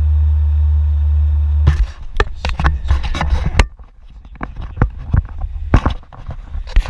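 Steady low drone of a farm vehicle's engine, which stops abruptly a couple of seconds in. A run of irregular sharp clicks and knocks follows.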